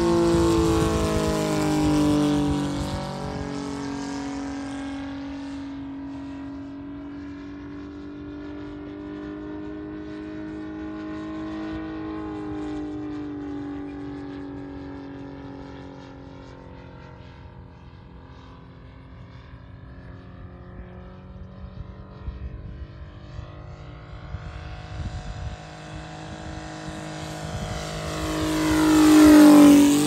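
Saito FG-90R3 three-cylinder radial four-stroke petrol engine running steadily on a large radio-controlled F4U Corsair model in flight. Its pitch drops as the plane passes and moves away at the start, and it stays fainter while the plane is farther off. Near the end it grows loud again and falls sharply in pitch as the plane makes a close pass.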